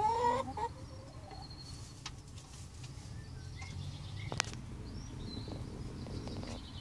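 Broody hen on her nest giving a short pitched call at the start, followed by faint high chirps and a couple of sharp clicks over a low steady hum.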